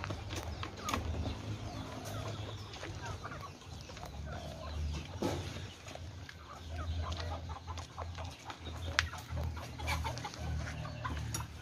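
Ayam kampung (village chickens) clucking in scattered short calls, over a low rumble.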